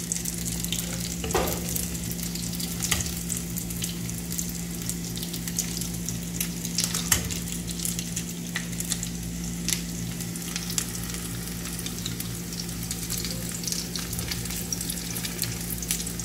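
Breaded chicken cutlets shallow-frying in hot oil in a pan: a steady sizzle with scattered crackles and pops. A steady low hum runs underneath.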